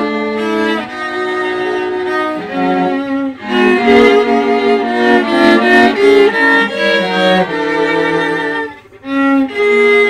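String quartet of two violins, viola and cello playing, bowing sustained notes that move in pitch together. The music drops away briefly about nine seconds in, then resumes.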